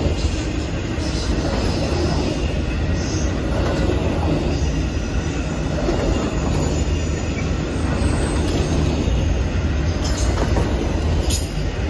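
Amtrak Auto Train's bi-level autorack cars rolling by: a steady low rumble of steel wheels on rail, with a few brief high-pitched wheel squeals near the end.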